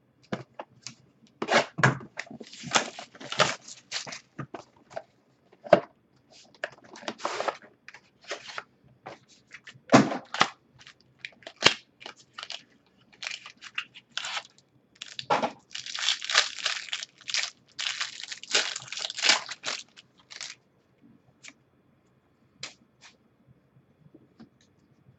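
A foil trading-card pack being torn open and its wrapper crinkled, with the cards then handled and flicked through by hand: irregular crackles and clicks, busiest in a long run about two-thirds of the way in, thinning to a few scattered clicks near the end.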